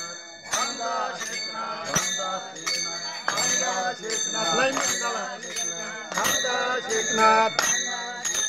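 Warkari devotees singing a bhajan together while striking small brass hand cymbals (taal) in a steady beat, about three ringing clashes every two seconds.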